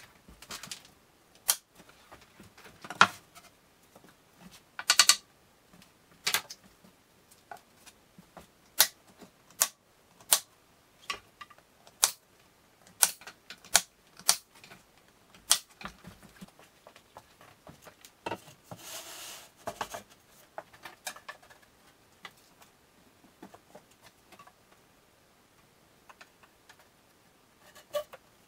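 One-handed quick-release bar clamps clicking and ratcheting as they are squeezed onto plywood cabinet panels, with knocks of the panels being handled. The clicks come irregularly, some in quick runs, and a second-long scraping sound comes about two-thirds of the way through.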